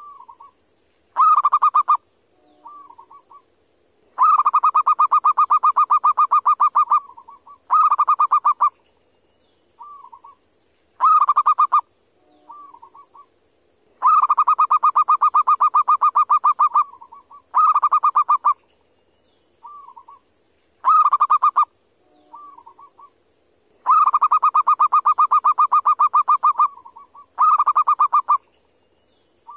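Wild-caught local zebra dove (perkutut) calling: repeated rattling coo phrases made of fast pulses, some brief and some running nearly three seconds, with short soft notes between them.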